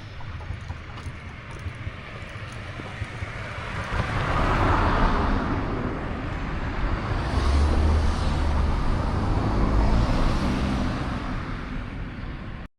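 A vehicle passing close by: a steady rumbling noise that swells about four seconds in and holds, then cuts off suddenly near the end.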